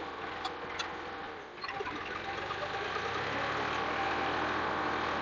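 Tractor engine running steadily under load as it pulls a two-disc plough through the soil, growing louder from about a second and a half in as the tractor comes closer.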